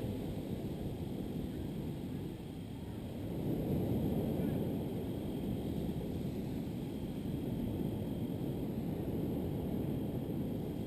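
Low rumbling noise that swells a little about three and a half seconds in.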